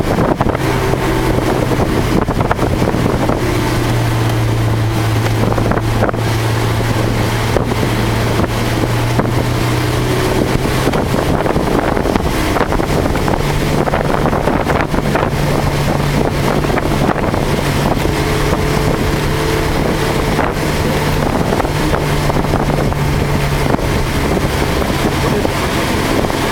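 Car engine running at a steady moderate speed, heard from inside the cabin over a constant hiss of tyres and wind on a wet track. The engine note steps up in pitch about halfway through and then holds.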